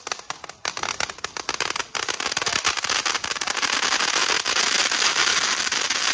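Ground firework fountain spraying sparks from a tube on the road, with a rapid crackle. About two seconds in the crackle grows denser and louder and stays that way.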